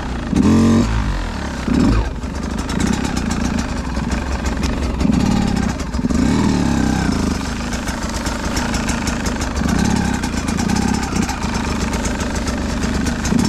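Beta 200RR two-stroke dirt bike engine revving up and down in low gear on a technical trail climb, its pitch rising and falling in repeated surges.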